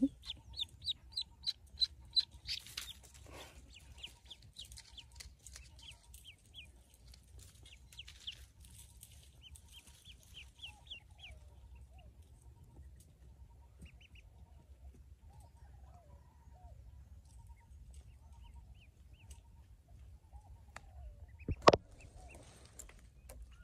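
Pekin ducklings peeping: a quick run of loud high peeps, about three a second, for the first few seconds, thinning to fainter scattered peeps. Lower short calls come in during the second half, and a single sharp knock sounds near the end.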